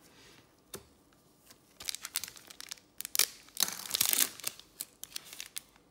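Foil wrapper of a trading-card pack crinkling as it is torn open by gloved hands: a run of crackles from about two seconds in, loudest near the middle, after a single light tap.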